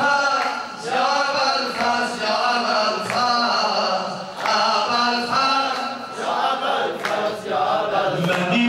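A man chanting a Shia religious elegy (mersiyye) into a microphone, with a group of men chanting along, over slow hand claps about once a second.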